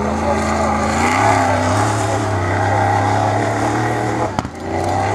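Off-road rally truck's engine running hard under load, its pitch stepping up about a second in and holding steady. A sharp click about four and a half seconds in, with the engine sound briefly dropping away.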